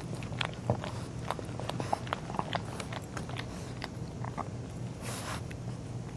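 Wet licking and snuffling from an adult pug working over a puppy: a run of small mouth clicks, with a longer sniff about five seconds in, over a steady low hum.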